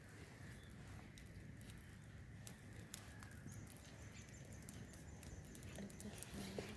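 Faint low rumble with scattered light clicks and taps, a little sharper about three seconds in and near the end.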